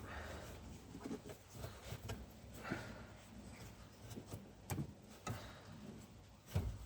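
Scattered light knocks, clicks and rubbing from hands working a ribbed auxiliary drive belt around the engine pulleys, with a louder knock near the end.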